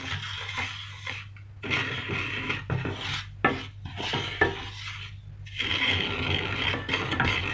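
A wooden spoon stirs and scrapes dry semolina (rava) around a frying pan as it dry-roasts in a little ghee. It makes a gritty rasping sweep in repeated strokes, with short breaks between them.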